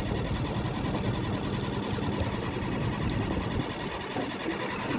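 Suzuki DF6A 6 hp four-stroke outboard motor running steadily at its lowest in-gear trolling speed during break-in, a quiet, fast, even putter.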